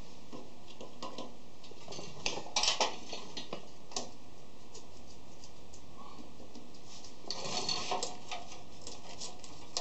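Small metal clicks and ticks as screws are worked out of a hoist's key-switch housing and the switch is handled, in bunches about two to three seconds in and again near the end.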